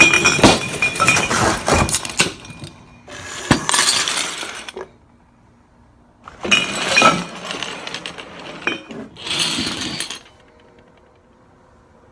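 Glass clinking against the table and bottle caps, then beer poured into a pint glass in three short pours of about a second each, with the foam fizzing.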